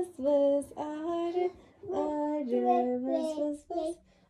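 A child singing a short tune in held, steady notes that step up and down in pitch, with brief breaks between phrases.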